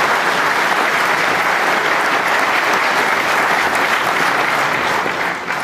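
Snooker audience applauding a well-judged safety shot. Steady clapping from the crowd dies away near the end.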